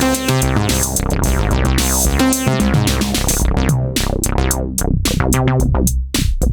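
Novation Peak synthesizer playing a resonant bass patch in a 110 bpm sequence over a drum-machine beat. The notes come in a steady rhythm, each one's bright top closing off quickly.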